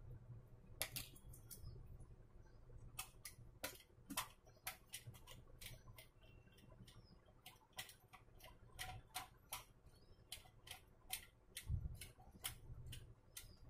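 Small sharp metallic clicks and ticks, irregular, a couple a second, as steel locking tabs on an LCD monitor's metal shield are worked open with a hand tool, over a faint low hum.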